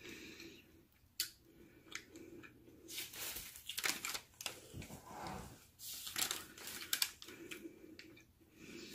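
A person chewing food close to the microphone: irregular soft clicks and smacks of the mouth, with small pauses.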